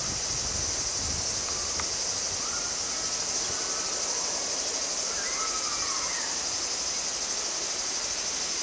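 Steady, high-pitched insect chorus, with a few short chirps over it.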